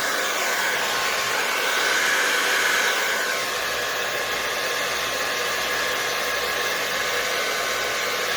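Hair dryer with a nozzle attachment blowing steadily. A faint whine in its rush drops a little in pitch about three seconds in.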